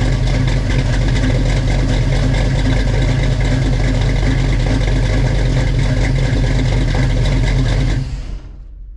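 Small-block Chevy V8 in a 1967 Chevy Nova running steadily at idle, just after a fresh set of spark plugs has been fitted and is being run in; the engine sound cuts off about eight seconds in.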